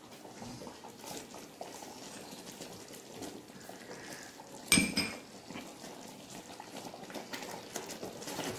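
A metal spoon scraping a thick paste out of a small bowl and stirring it through thick, simmering payasam in a large brass uruli. About halfway through, the spoon knocks sharply on the metal with a brief ringing clink.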